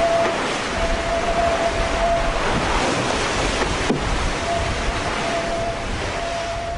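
Wind and rushing sea water around a sailing boat, with a thin steady whistle that comes and goes. A single sharp knock about four seconds in.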